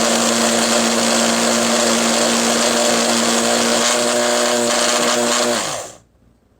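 PowerXL Grind & Go coffee maker's built-in grinder motor running steadily as it grinds whole coffee beans, then winding down in pitch and stopping near the end as the grind finishes.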